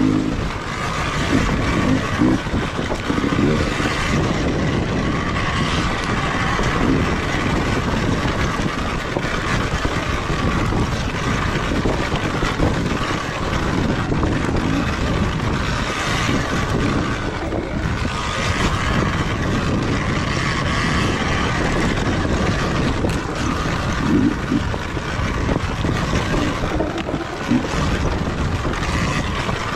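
Surron Ultra Bee electric dirt bike being ridden along a rocky dirt trail, heard from the rider's camera: a loud, steady rush of drivetrain, tyres on dirt and rock, and wind on the microphone, with small knocks as the bike jolts over rocks.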